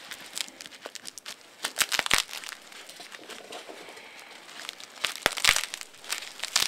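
Plastic cling-film wrapping crinkling and tearing as a knife cuts open a hand-held bundle of dried marijuana. Irregular crackles, with louder clusters about two seconds in and again around five seconds in.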